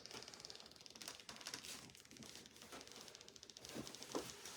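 Very quiet room tone with faint rustling and a few light taps and knocks from objects being handled, two slightly louder knocks near the end.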